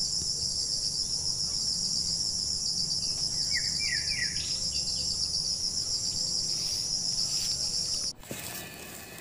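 Steady high-pitched insect chorus of crickets or cicadas, with a few short rising chirps about three and a half seconds in. The chorus cuts off abruptly about eight seconds in.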